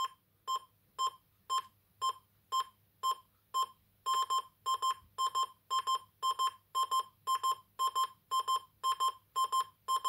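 ADE Logic 6 alarm panel sounding its exit-time beeps after being set by key fob, while the panel counts down to arm. The beeps are short, come about twice a second, and about four seconds in change to quick double beeps.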